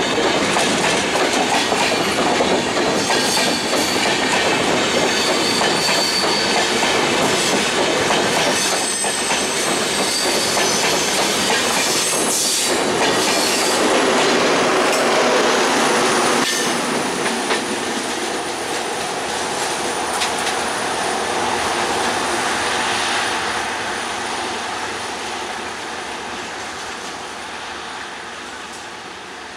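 Express train's AC three-tier LHB coaches rolling past on the rails, the wheels clattering over rail joints with a few sharp knocks and some thin high wheel squeal. About halfway through the sound begins to fade steadily as the last coach moves away.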